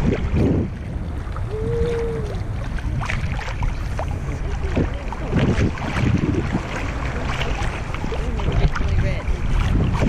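Wind noise on the microphone over sea water lapping and splashing against an inflatable tube, with a few short splashes scattered through.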